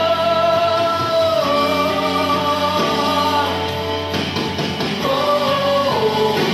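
Christian worship song (alabanza) playing: a singing voice holds long notes that step down in pitch, over instrumental backing.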